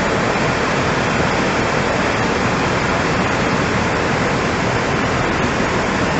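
Floodwater rushing steadily: a loud, dense, even wash of water noise with no breaks.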